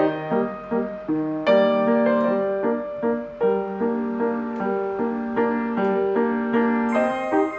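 Background piano music: a calm melody of struck notes that ring and fade over lower held notes, with a brief high chime about seven seconds in.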